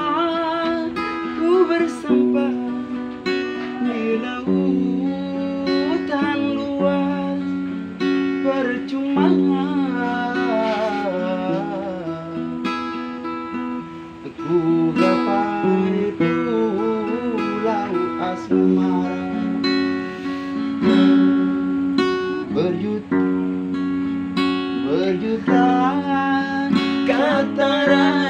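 Singing with acoustic guitar accompaniment: a voice carrying a melody in phrases over steady guitar chords, with a brief dip in loudness about halfway through.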